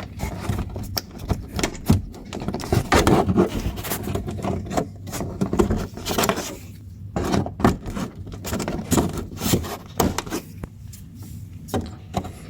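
Plastic push-pin rivets being pried out of a wheel-well liner with a removal tool: irregular clicks, snaps and scraping of plastic.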